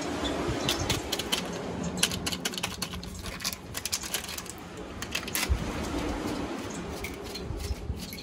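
Crinkling and tapping of foil seasoning sachets as powder is shaken out of them over a plate of flour, heard as irregular runs of small sharp clicks, thickest about two to four seconds in.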